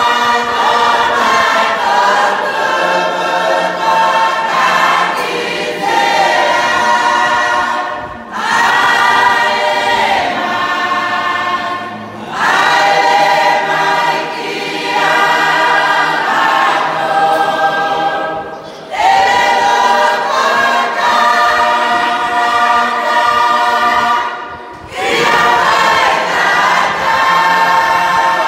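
Church congregation singing a hymn together, many voices in long sung phrases broken by brief pauses every four to six seconds.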